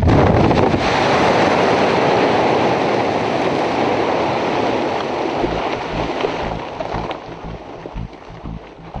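Quarry blast in a granite face: a sharp burst of cracks at the start, then a long rushing roar of shattered rock tumbling down the face, fading over about seven seconds.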